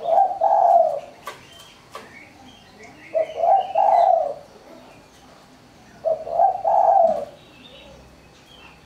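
Spotted dove (tekukur) cooing: three phrases of about a second each, roughly three seconds apart, in the small, thin 'mersik' voice type.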